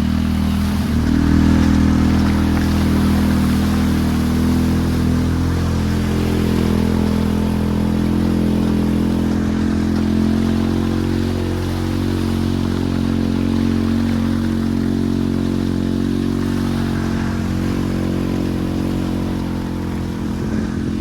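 Vehicle engine running steadily at low speed, rising a little in pitch and level about a second in and then holding even.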